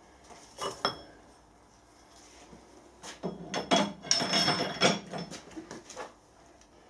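Steel parts of a home-made bearing puller clinking and knocking together as its crossbar is fitted over the threaded rods on a tractor half shaft. There are two sharp clinks within the first second, then a run of metallic knocks and clinks from about three to six seconds in.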